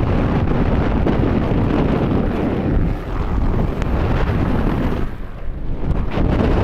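Heavy wind buffeting the microphone over a low rush of water and surf, easing briefly about five seconds in.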